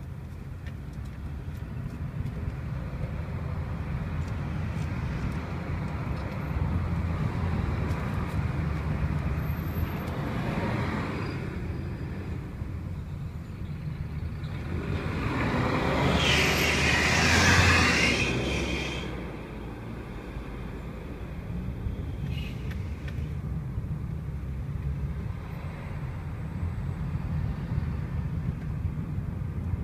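City street traffic with a steady low rumble. A vehicle passes close by just past halfway, swelling loud with a rush of hiss and then fading.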